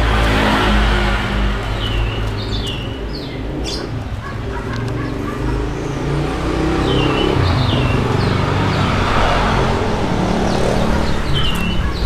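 A motor vehicle engine running steadily in the background, with short high bird chirps a few times, often two in quick succession.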